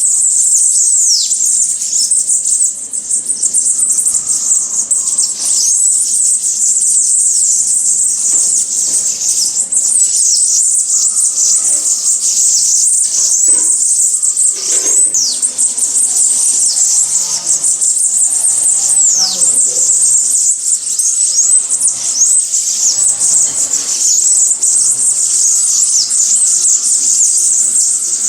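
Songbirds chirping continuously in a dense, high-pitched chorus, with a few whistled calls that slide down in pitch about a second in, near the middle and again a few seconds later.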